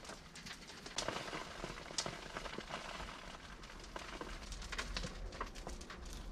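Soil mix being scooped with a small plastic pot and spread into plastic seed cell trays: a faint rustle of soil with scattered sharp plastic taps, two louder ones about one and two seconds in.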